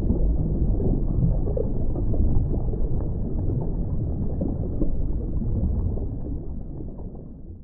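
Deep, even rumbling sound effect under a film company's animated logo sting, fading out near the end.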